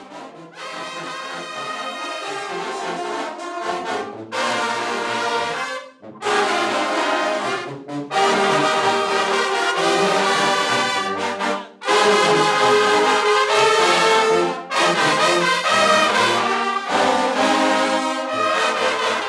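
Junkanoo brass section playing a tune in phrases broken by brief pauses, getting louder about six to eight seconds in.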